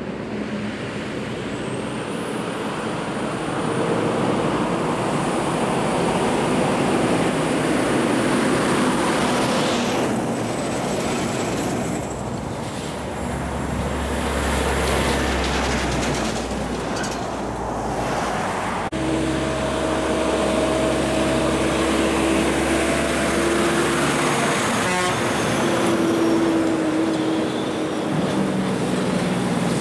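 Diesel engine of a DAF CF car-transporter truck on a winding road, growing louder over the first few seconds as it comes close. After a sudden change, the engine of a second heavy truck hauling an LPG tanker is heard as a steady drone.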